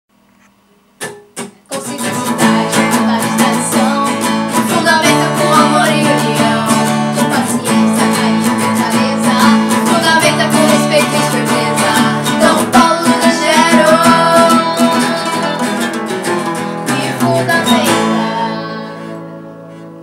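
Two acoustic guitars strummed, backing women's voices singing a short song in Portuguese. Two quick strums come about a second in, the song runs until near the end, and it closes on a chord left ringing and fading.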